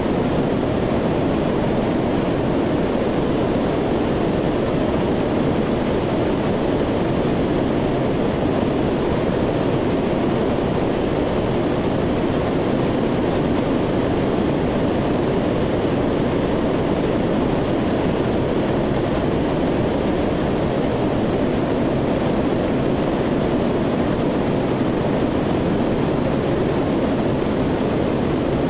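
Lockheed C-130 Hercules's four turboprop engines and the rush of air heard from inside the aircraft in flight: a loud, steady noise that does not change.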